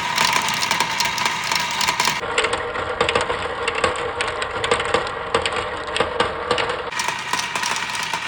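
Glass marbles rolling down a wooden wave-shaped track, with many quick clicks and clacks over a steady rolling hum.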